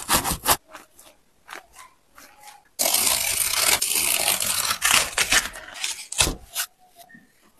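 A knife cuts through the sneaker's upper with a quick run of crackling snips. Then comes a long tearing rip of about two and a half seconds as a glued layer is pulled away from the foam midsole, followed by a few sharp cracks.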